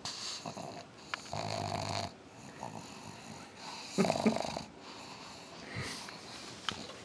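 A black pug breathing noisily through its short, flat nose: a string of rough breaths, the loudest about four seconds in. Such noisy breathing is typical of a flat-faced breed's narrowed airway.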